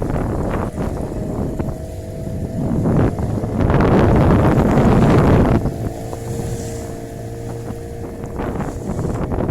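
Small fishing boat's motor running steadily, with wind buffeting the microphone. A loud rush of wind or water swells in for about two seconds mid-way, and scattered knocks come through.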